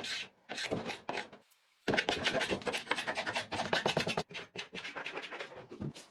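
Paint being scraped off wood with a hand scraper, in short rasping strokes: a few separate strokes at first, then a fast, steady run of strokes from about two seconds in.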